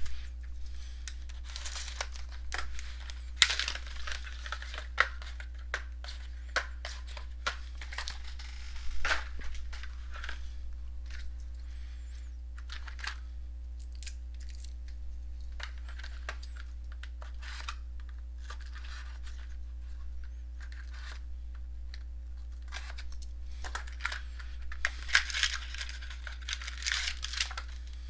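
Plastic wrap and card packs being torn open and crinkled as a sealed box of trading card packs is unwrapped, in bunches of rustling and crackling with a calmer stretch in the middle.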